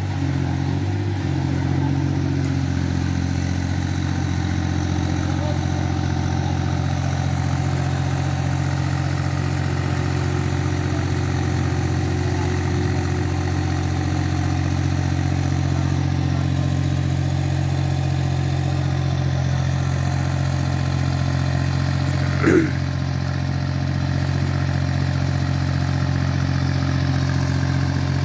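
Small backhoe's engine running steadily at one constant speed, with no revving. A single brief, louder noise cuts in about 22 seconds in.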